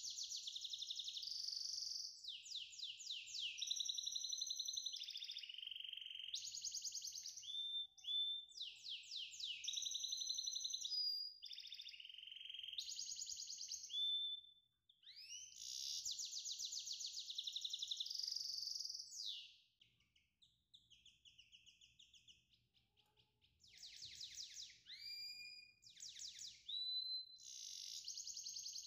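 A songbird singing in long, rapid trills and sweeping whistled notes, with a pause of a few seconds about two-thirds of the way through.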